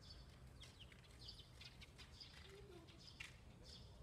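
Faint bird chirps: short, high chirps repeated every half second or so over a low, steady background rumble.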